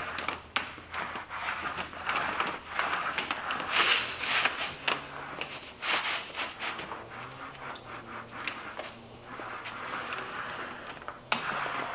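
A 6-inch paint roller spreading wet contact cement across a Formica laminate sheet: sticky, rasping swishes with small clicks, rising and falling with each back-and-forth stroke.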